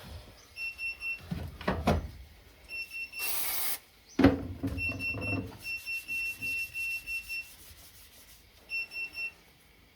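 A wheel balancing machine beeping in short high electronic beeps: runs of three, and one longer run of about ten in the middle. Knocks and clanks come in between, with a brief hiss about three seconds in and a loud metallic clunk just after.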